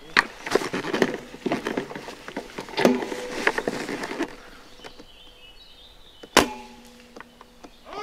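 Rustling and twig crackling from footsteps through leafy undergrowth, then one sharp crack about six and a half seconds in, the shot of a bolt-action spring airsoft sniper rifle, followed by a low tone that lingers for about a second and a half.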